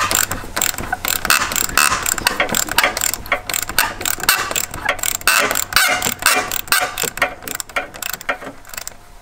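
Hand ratchet clicking in quick runs as fasteners are worked on, here during removal of a Mk2 Focus ST's standard intercooler and pipework.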